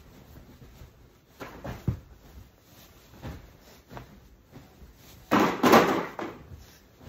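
A person's body landing and shifting on a blanket-covered bed: soft thumps with fabric rustling, and a louder, longer thump and rustle a little past five seconds in.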